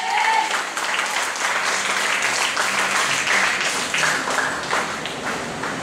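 Congregation applauding, many hands clapping together; the clapping eases off slightly near the end.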